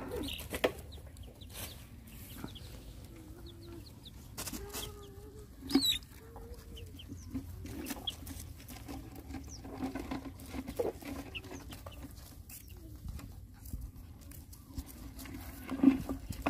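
Chickens clucking in short, scattered calls, with a sharper call about six seconds in and again near the end. Underneath, many small clicks and knocks as puppies eat from a plastic bucket.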